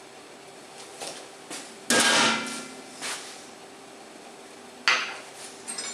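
Kitchenware clatter: a ceramic ramekin knocked and set down on hard kitchen surfaces, two sharp knocks about three seconds apart. The first is the louder, with a short rattle and ring; the second is followed by a few light ticks.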